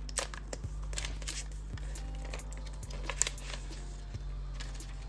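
Paper and cardboard packaging rustling, with scattered small clicks and taps, as a smartphone is slid out of its paper sleeve and inner box.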